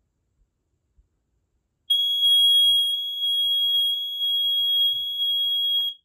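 Kidde NightHawk KN-COPP-3 carbon monoxide alarm's piezo sounder on test, held down by the test button: one continuous high-pitched tone starting about two seconds in and lasting about four seconds, stopping just before the end.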